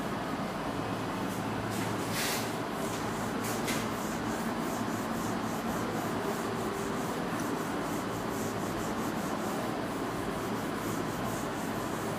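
Whiteboard eraser rubbing across a whiteboard, wiping off marker drawings, over a low steady hum, with a couple of brief knocks about two and three and a half seconds in.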